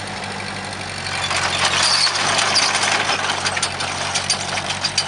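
Engine of harvest machinery running steadily, with a rising hiss from about a second in and irregular clattering ticks joining in the second half.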